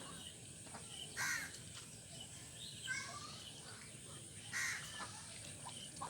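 Ducks quacking: two loud, harsh quacks about three and a half seconds apart, with a softer call between them.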